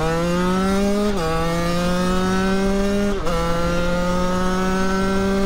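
Beta Track 50cc two-stroke moped engine, fitted with a 70cc top end and a Most exhaust, accelerating under load. Its pitch climbs steadily, then drops sharply as it shifts up twice, about a second in and about three seconds in.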